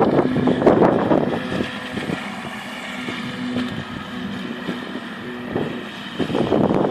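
Radio-controlled model boat's motor running on the water, its tone stepping up and down as the throttle changes, heard under wind buffeting the microphone, with gusts loudest at the start and again near the end.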